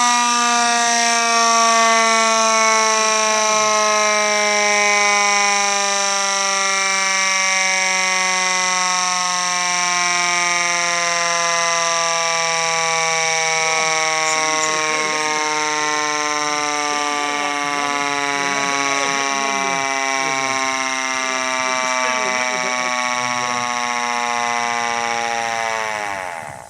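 Federal Signal C5LB electromechanical rotor siren running at full speed on 12 volts, a loud steady tone rich in overtones whose pitch sags slowly. Near the end it winds down fast and stops.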